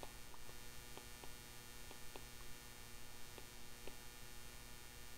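Steady electrical mains hum, with a faint light tick every half second or so.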